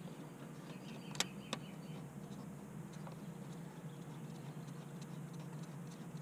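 Small clicks and ticks of a bolt being fitted by hand into a plastic thermostat housing, with two sharp clicks about a second in and faint scattered ticks after, over a steady low hum.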